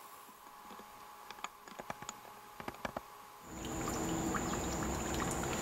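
Faint scattered clicks and ticks underwater. Then, about three and a half seconds in, a louder steady rush of water trickling and lapping at the pool surface begins, with a thin steady high tone over it.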